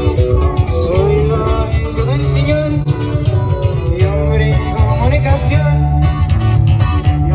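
Live band music: acoustic guitars picking a melody over a heavy bass line, played loud through large PA speakers.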